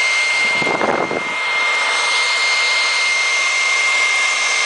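Leaf blower running steadily, a loud rush of air with a steady high-pitched whine, blowing on a whirligig to turn its propeller. A brief low rumble comes about a second in.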